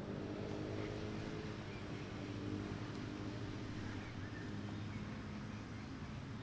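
A motor vehicle's engine running steadily, a low, even hum.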